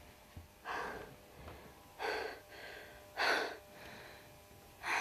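A woman breathing hard: four loud breaths roughly a second apart, out of breath after hitting full-power table tennis shots.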